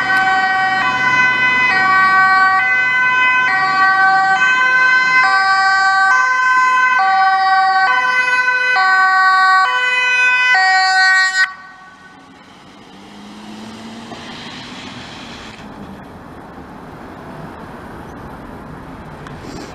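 Dutch ambulance two-tone siren, switching between a high and a low pitch a little more often than once a second, on an urgent A1 run. About eleven seconds in it is switched off abruptly, leaving only a vehicle engine and traffic noise at a much lower level.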